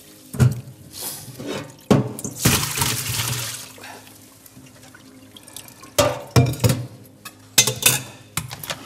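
Water splashing as a stainless steel pot is filled at a kitchen tap and tipped out into a metal sink to cool boiled courgettes. A rush of pouring water comes about two and a half seconds in, with several clanks of the pot against the sink.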